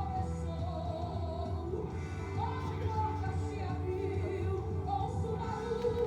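Music with a steady bass line and a singing voice.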